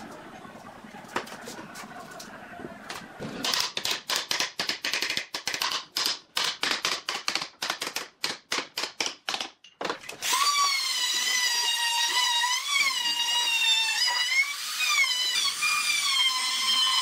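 A fast run of hammer blows on a wooden block laid on a pine tabletop. About ten seconds in, an electric trim router takes over with a steady high whine that wavers slightly as it cuts along the table edge.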